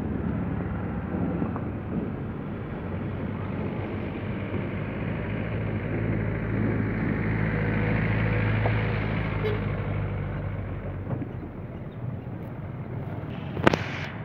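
Auto-rickshaw running along a road, heard from on board: a steady low engine hum under road and wind noise, swelling a little midway. A sharp knock near the end.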